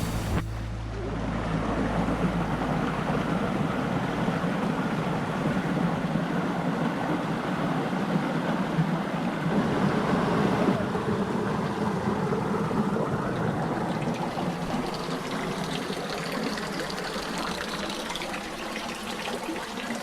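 Stream water flowing and splashing steadily at a natural pool.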